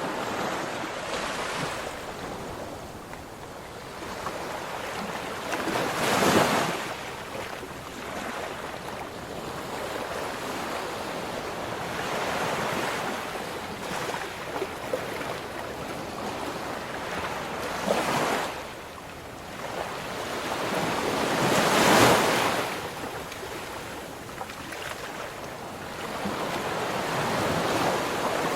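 Ocean waves rolling in and breaking, a continuous wash of surf that swells into louder breaks about six seconds in and twice more later on.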